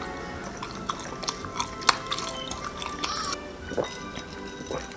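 Background music with close-up eating sounds: chewing a chewy rice cake, then swallows of a milky grain drink near the end.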